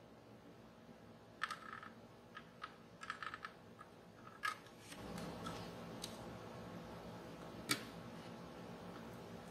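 Light clicks and taps of a metal screwdriver tip against the chrome exhaust headers of a 1:12 diecast motorcycle model, coming in small irregular clusters. From about halfway a faint steady hiss sets in, with one sharper click later on.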